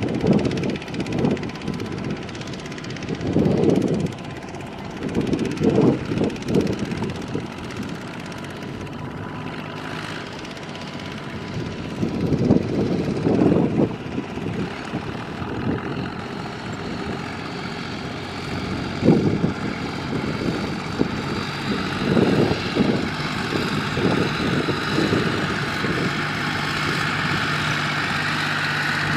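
Engines of several small diesel farm tractors running as they drive across a muddy harvested rice field, a steady drone with irregular louder surges every few seconds.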